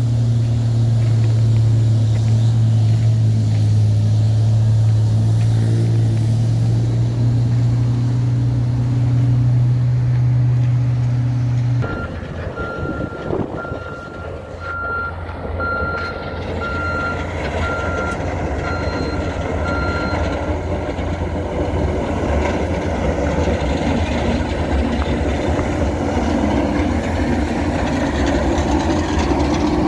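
A steady low engine drone cuts off abruptly. A reversing alarm then beeps about once a second over traffic noise for several seconds. Near the end a snowplow truck's diesel engine and its blade scraping through the snow grow louder as it approaches.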